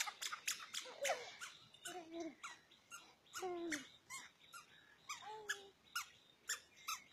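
Young children's short squeals and calls, each falling in pitch, with a quick run of sharp clicks between them.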